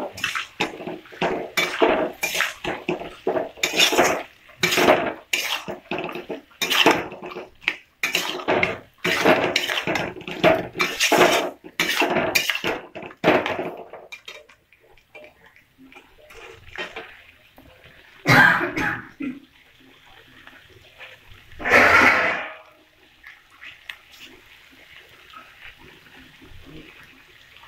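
Metal spatula scraping and clanking against a wok, stirring boiled peas and potatoes into fried masala: rapid strokes for about the first half, then quieter, with two separate louder scrapes later on.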